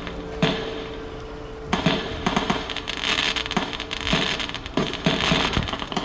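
Fireworks going off, with dense crackling and popping plus scattered low bangs starting about two seconds in, over background music.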